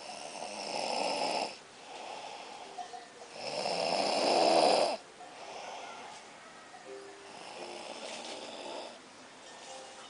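A man snoring loudly in his sleep: three long snores on the in-breath, about three to four seconds apart, the middle one the loudest.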